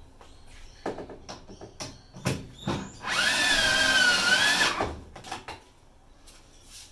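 Power drill driving a screw into a washing machine's plastic outer tub, its motor whining steadily for about a second and a half, starting about three seconds in. Clicks and knocks of handling the screws and tub come before and after it.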